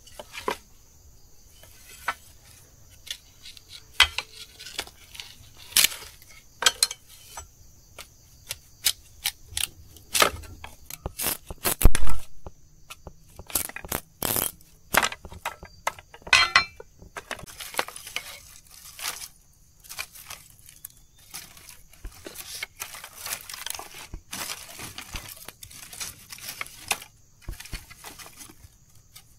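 A long run of irregular clinks, taps and knocks, as of things being handled, with the loudest knock about twelve seconds in.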